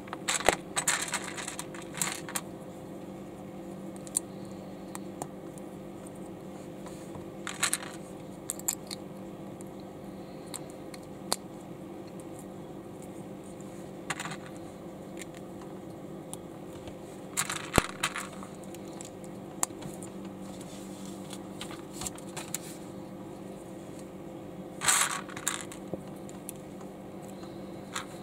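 Small plastic LEGO bricks clicking and clattering as they are handled in a loose pile, in scattered bursts of clicks, over a steady low hum.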